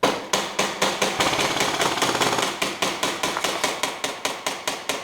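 Sustained airsoft gunfire: a rapid, unbroken volley of sharp clacks and impacts that starts suddenly and stops about five seconds in.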